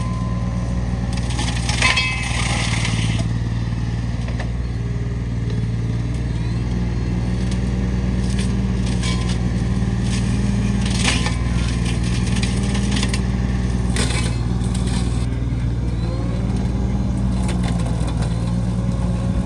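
An engine running steadily at a constant speed, with a few brief knocks and rattles over it.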